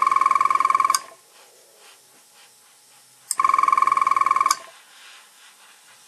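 Telephone's electronic ringer trilling twice, each ring just over a second long with a fast warbling flutter, about three seconds apart.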